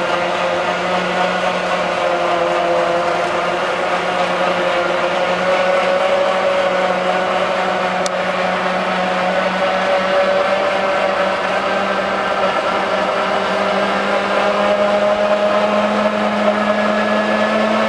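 Electric winch motor running steadily under load, reeling in its cable to haul up a cargo trailer's heavy hinged rear ramp door. Its whine climbs gently in pitch over the second half as the door swings toward closed.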